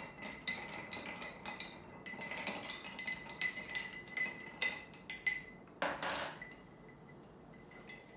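A spoon stirring a drink over ice in a glass: a quick, uneven run of clinks against glass and ice, about two a second, stopping about six seconds in.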